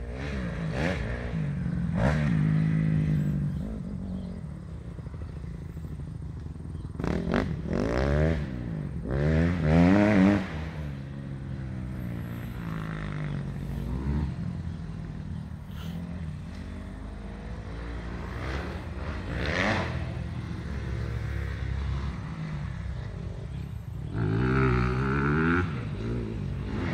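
Honda CRF250R motocross bike's four-stroke single-cylinder engine revving up and down as it is ridden around the track, several throttle surges rising and falling in pitch, the loudest about ten seconds in.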